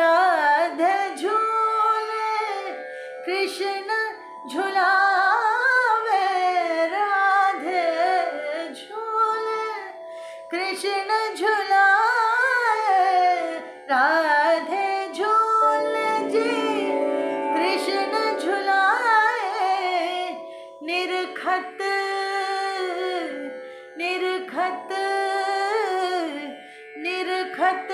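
A woman singing long, ornamented melodic lines of a Hindustani semi-classical jhoola song over a steady instrumental drone.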